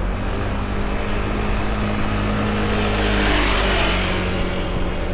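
Street traffic: a motor vehicle passes close by, its tyre and engine noise swelling to a peak about three and a half seconds in and then fading, over a steady low engine hum.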